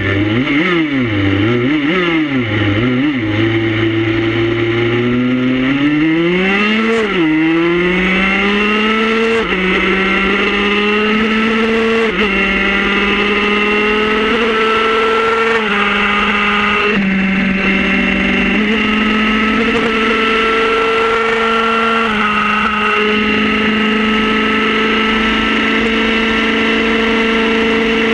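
Motorcycle engine blipped up and down a few times, then accelerating hard through the gears. Its pitch climbs and drops sharply at each of about five shifts, then it settles into steady high revs at speed, with wind rushing past underneath.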